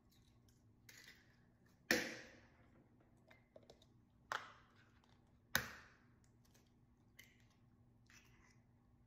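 Eggs being cracked and separated by hand: sharp knocks of eggshell against a hard edge and lighter clicks of shell. There are three louder knocks, the first about two seconds in, each with a short ringing tail.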